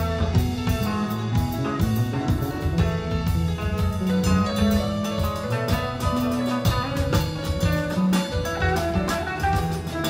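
Live band playing an instrumental passage: drum kit with steady cymbal strokes over a moving low bass line, with electric guitar.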